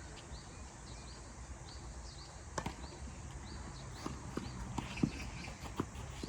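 Tennis balls being struck by rackets and bouncing on the court: a handful of sharp knocks starting about two and a half seconds in, the loudest about five seconds in.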